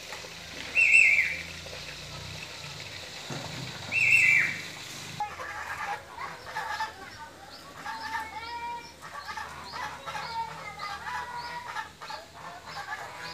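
Bird calls: two loud, short calls falling in pitch a few seconds apart, then a caged songbird's run of many varied chirps and whistles.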